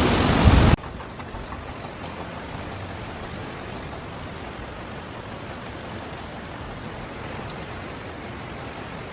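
A loud roar of rushing water cuts off abruptly under a second in, giving way to a steady, quieter hiss of rain.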